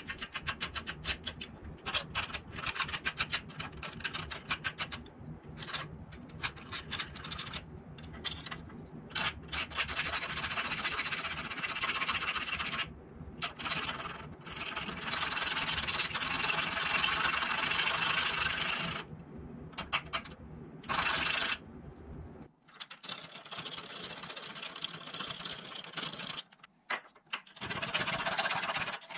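A thin hand file rasping back and forth on the metal jaw of an antique adjustable wrench. It starts as quick short strokes, then turns into longer, steadier rasping with a few brief pauses.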